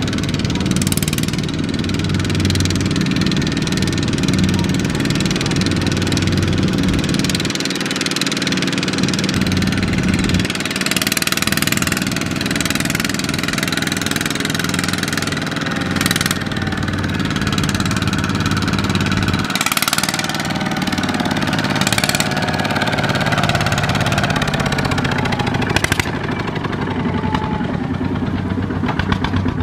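Single-cylinder diesel engines of two-wheel walking tractors running steadily as they pull loaded rice trailers, with a few short sharp knocks along the way.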